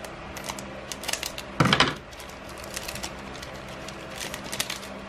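Scissors cutting open a foil booster pack wrapper: scattered crinkles and clicks of the foil, with one louder crinkling cut about one and a half seconds in and a few more crinkles near the end.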